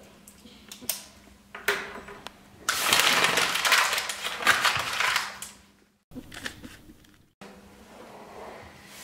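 A few light clicks, then about three seconds of loud pen scratching on paper as a signature is written, ending abruptly.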